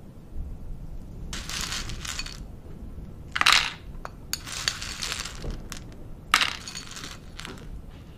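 Hina arare rice puffs rattling as they are poured from a small glass bowl onto a plastic toy-kitchen tray, in several short bursts, with two sharp clinks.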